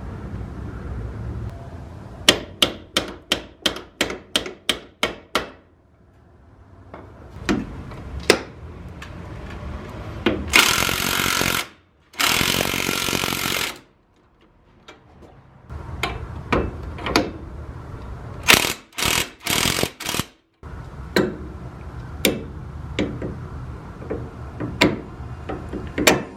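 Tool work on car suspension parts: a run of evenly spaced sharp knocks, about three a second, then two loud one-second bursts of a power tool. Scattered knocks and short tool bursts follow.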